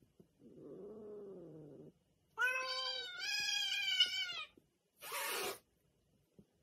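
Two domestic cats squaring off: a quiet low yowl that rises and falls, then a louder, wavering yowl about two and a half seconds in, and a short hiss about five seconds in.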